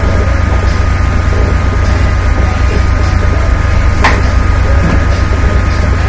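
Steady low rumble of road and engine noise inside a moving car, with one sharp click about four seconds in.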